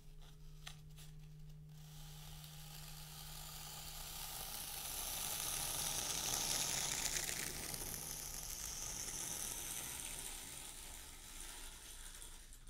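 A few light clicks, then a thin tool dragged through fine sand: a long grainy scraping hiss that swells toward the middle and fades out near the end as the groove is drawn.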